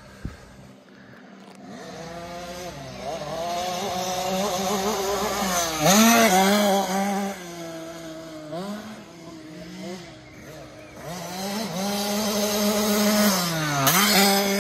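Small 50cc two-stroke kids' dirt bike engine revving up and down as it rides the track, loudest about six seconds in and again near the end, where the throttle is opened sharply.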